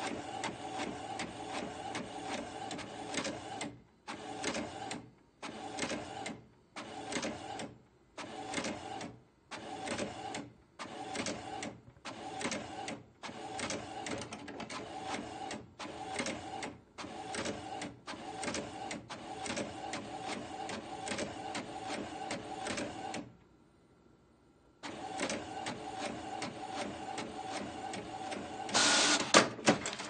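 Printer running as it prints, its mechanism whirring with a steady hum. For a stretch it stops and starts about once a second in short runs. Later it runs steadily, pauses for about a second and a half, then starts up again and grows louder near the end.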